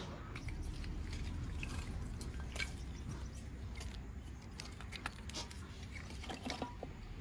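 Scattered light clicks, taps and small knocks of things being handled and set down, over a low steady rumble.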